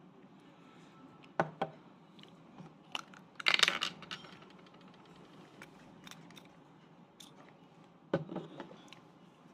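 Small objects being handled: a few sharp clicks and knocks, with a louder crinkling rattle about three and a half seconds in and two more knocks near the end.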